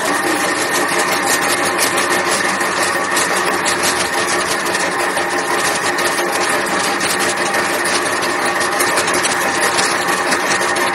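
Motor-driven clay-processing machine running steadily, a constant whine over an even mechanical hiss.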